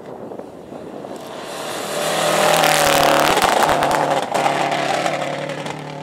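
Subaru Impreza rally car coming on at full throttle along a gravel road and growing louder, with gravel crackling under its tyres as it passes close about three seconds in. The engine note drops slightly as the car passes and pulls away.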